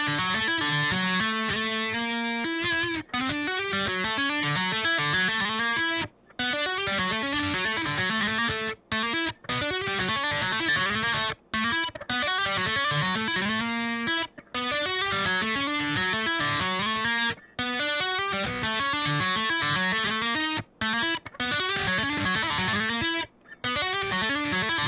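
Unaccompanied electric guitar played with two-handed tapping: fast, repeating runs of single notes that break off abruptly every few seconds in brief silences before starting again.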